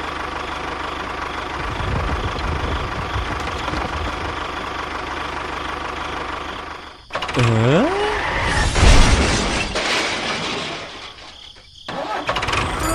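A small motor runs steadily. About seven seconds in the sound cuts, followed by a short swooping pitched tone and a louder, rougher clatter.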